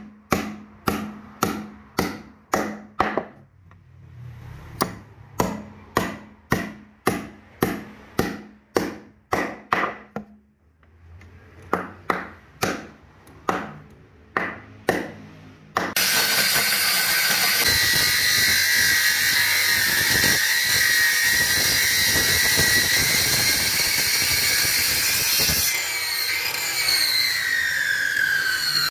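Hammer blows driving steel nails into a solid wood bench, about two a second, in runs with short pauses. About halfway through, a handheld electric circular saw starts and runs loudly and steadily. Near the end it slows, its pitch falling.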